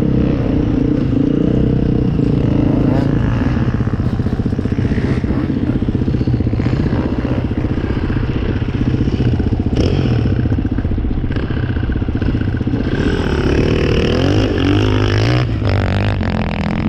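Off-road enduro motorcycle engine running hard, its pitch rising and falling as the throttle opens and closes, with a few brief knocks.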